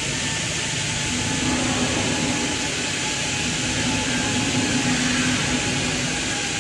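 Steady factory-hall machinery noise: an even rush with faint steady hums underneath, the low hum swelling a little in the middle.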